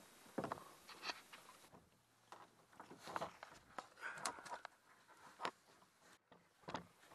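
Irregular clicks, knocks and rustles of canoe-trip gear being handled, with a few sharper knocks spread through.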